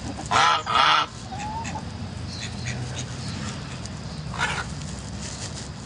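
Domestic goose honking: two loud honks in quick succession near the start, then a single weaker honk about four and a half seconds in.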